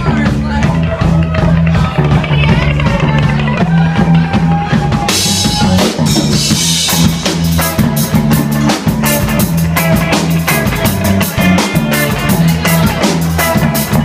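Live band jamming, recorded in a club: a repeating bass-guitar line, a drum kit keeping a steady beat, and electric guitar, in a reggae vein. A splash of high noise, like a crash cymbal, comes about five seconds in.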